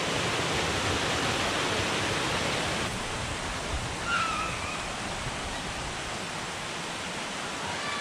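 Creek water rushing over rocks and small cascades, a steady rush that is a little louder in the first few seconds. A short high-pitched call about four seconds in.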